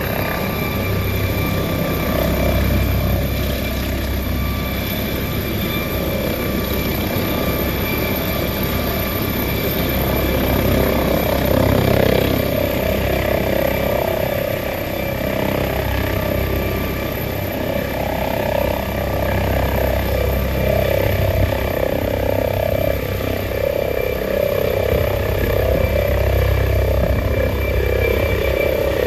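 Rescue helicopter running at close range, its rotor turning and its turbine giving a steady high whine over a low rumble. It lifts off and rises into a hover later on, growing a little louder.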